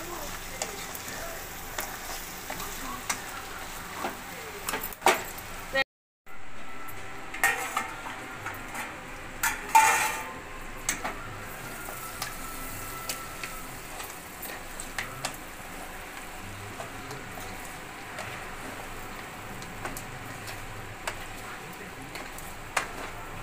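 Pieces of goat head frying with spices in oil in a pan, sizzling steadily, while a metal spatula stirs and scrapes against the pan with scattered clicks and a louder clatter about ten seconds in. The sound drops out briefly about six seconds in.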